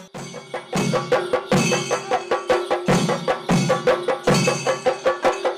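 Kerala folk percussion playing a fast, driving rhythm: quick sharp drum strokes over a deeper drum beat about every three-quarters of a second. The drums come in fully a little under a second in.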